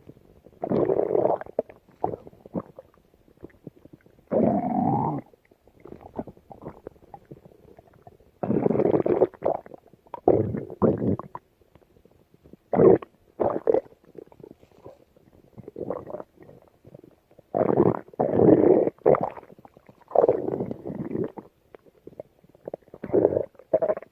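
Stomach growling: about ten irregular bursts of gurgling and rumbling, each from a split second to over a second long, with quiet gaps between them. One growl about four seconds in carries a pitch that bends up and down.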